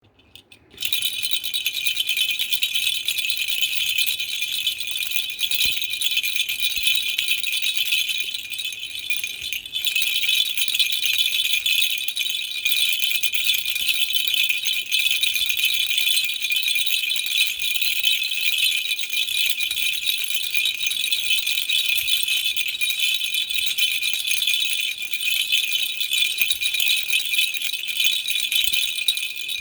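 Baby rattle shaken continuously, a dense high-pitched rattling that starts about a second in and eases briefly a little before halfway.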